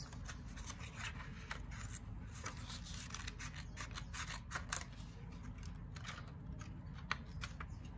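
Scissors cutting through folded thick A4 paper, a run of short, irregular snips.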